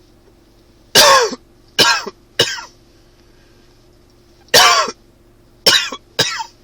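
A man coughing in two bouts of three short coughs, the first about a second in and the second about four and a half seconds in. It is a dry cough, which the uploader puts down to spring allergies.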